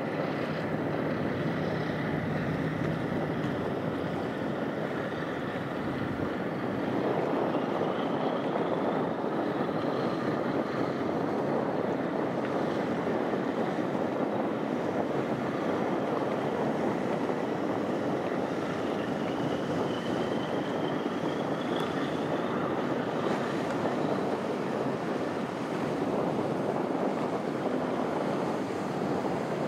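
Steady rushing noise of wind over harbour water, with faint high rising whistles about eight seconds in and again about twenty seconds in.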